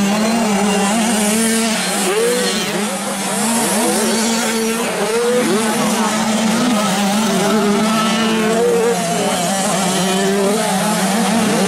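Several 85 cc two-stroke motocross bikes racing, their engines revving up and down with repeated rising and falling whines over a steady drone.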